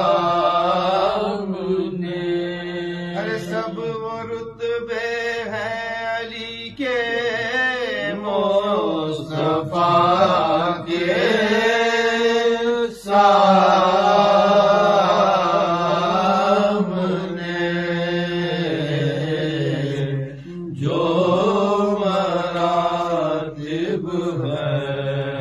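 A voice chanting Urdu devotional elegy in slow, drawn-out melodic phrases, holding and bending long notes, with a few short breaks for breath.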